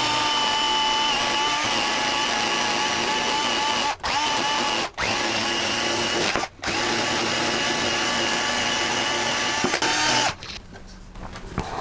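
Power tool spinning a nylon brush against burnt pine, scrubbing off the soft charcoal to bring out the grain texture. The motor runs at a steady pitch, cuts out briefly three times, and stops near the end.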